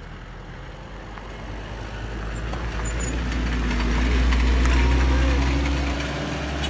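Pickup truck engine driving past close by, rising steadily to its loudest about four to five seconds in, then easing off.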